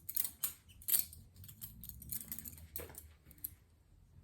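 Butterfly knife (balisong) being flipped into a reverse grip: a few sharp metallic clicks and clacks as the handles swing and strike each other, the loudest about a second in.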